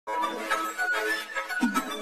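Instrumental intro music: a light tune of several steady notes.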